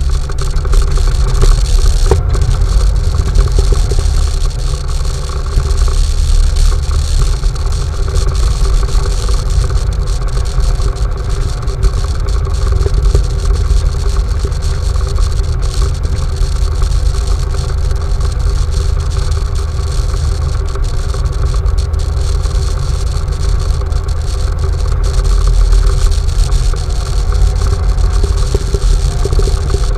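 An off-road vehicle's engine running steadily with a continuous low rumble and an even drone, with no breaks.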